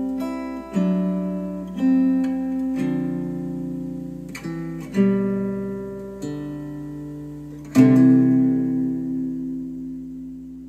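Slow plucked acoustic guitar music, with a new chord or note struck every second or two, each ringing out and fading. It is played back through KEF R3 bookshelf speakers.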